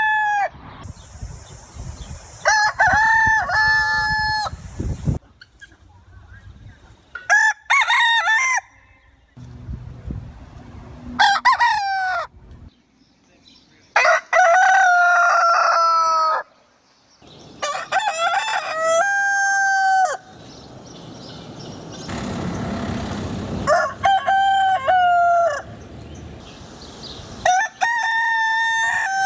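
Roosters crowing again and again, about eight long calls a few seconds apart, each ending in a falling tail.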